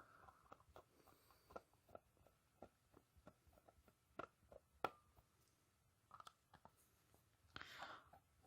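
Faint, irregular small clicks and taps, like something being handled, with one sharper click about five seconds in and a short rustle near the end, over a faint steady high-pitched tone.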